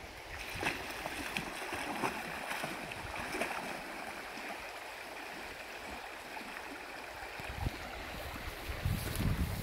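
River water flowing steadily, with splashes in the first few seconds as a Bucovina Shepherd dog wades in from the bank. A brief low rumble near the end.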